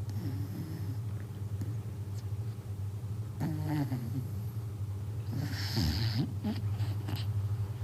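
Corgi snoring in its sleep, with a few short wavering pitched sounds and a louder breathy snort about five seconds in; the snoring is heavy, like a grown man's.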